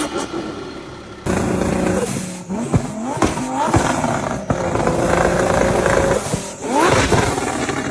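Turbocharged car engine revving in quick blips, each a short rise in pitch, with a steady held note in the middle and another rev near the end. An abrupt change about a second in marks a switch to a different car.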